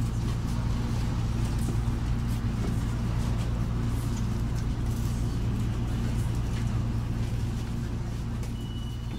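City bus engine idling, heard from inside the passenger cabin: a steady low hum that fades out near the end. A brief high tone sounds shortly before it fades.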